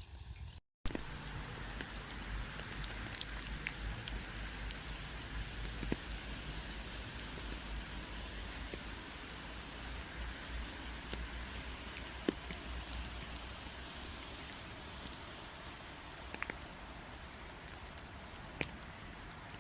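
Steady rain falling, with scattered individual drops tapping close by over a low rumble. The sound cuts out completely for a moment just under a second in.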